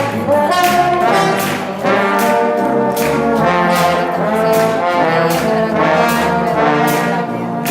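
Live band playing instrumental music, with sustained melody notes over a steady beat.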